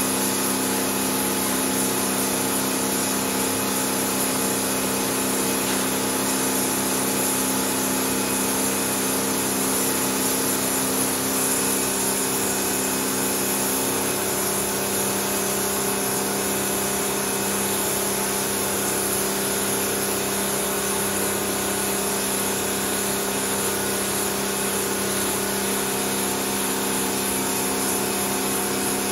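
Pressure washer spraying a high-pressure jet of water onto a soaked, soapy rug: a steady hiss of spray over the even hum of the washer's pump motor.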